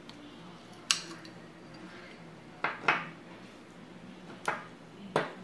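Sharp metallic clicks and clinks as the corroded FN 49 rifle buttplate and its small parts are handled and knocked together, five short strokes that die away quickly.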